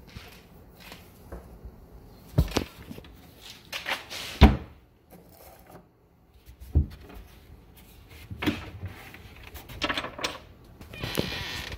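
The wooden hinged top of a workbench, held shut by magnetic cabinet locks, is handled and unlocked: a few sharp wooden knocks and clunks, the loudest about four seconds in, then a scraping rustle near the end as the top is raised.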